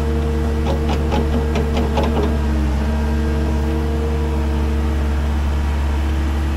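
Cat 310 mini excavator's diesel engine running steadily under hydraulic load while it backfills, with a quick run of clicks and clatters about a second in as the bucket dumps its load.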